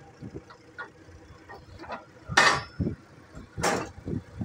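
Old steel truck parts clanking as they are handled and dropped among other scrap parts: two loud metal clanks about two and a half and three and a half seconds in, with lighter knocks between.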